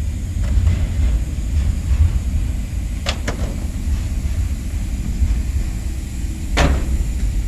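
Metal latches on a diesel locomotive's engine-room access door being released, two sharp clicks about three seconds in, then a louder metallic clack as the hood door swings open, over a steady low rumble.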